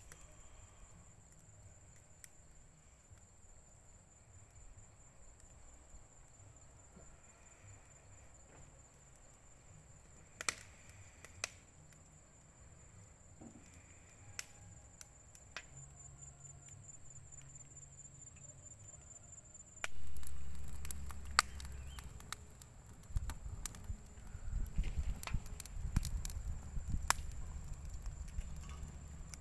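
Wood fire crackling in a small portable grill: scattered sharp pops, becoming louder and much busier about two-thirds of the way in, along with a low rumble. A thin steady high tone sits behind it.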